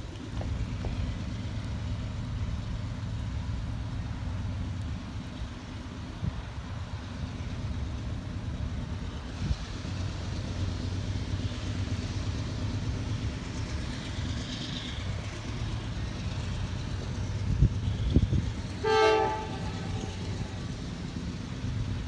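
Distant diesel freight locomotives working under throttle, a steady low rumble. Near the end, after a single thump, the lead locomotive's air horn gives one short toot.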